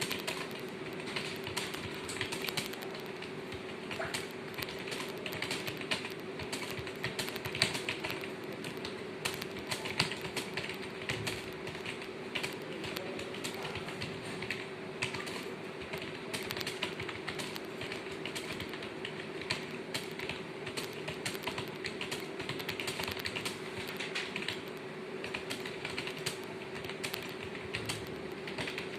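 Rapid, continuous clatter of computer keyboard keys being typed during a typing test, over a steady low hum.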